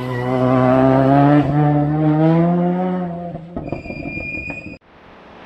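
Race hatchback's engine accelerating hard out of a hairpin, its note rising steadily for about three seconds, then a high steady whine for about a second. The sound cuts off suddenly and a quieter, more distant car engine follows.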